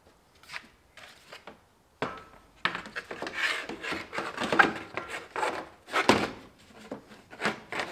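A plastic radiator cooling fan assembly being worked into place by hand: a few light clicks, then from about two seconds in a busy run of knocks, clicks and plastic scraping. The fan is hard to fit because the radiator hose is already on and in the way.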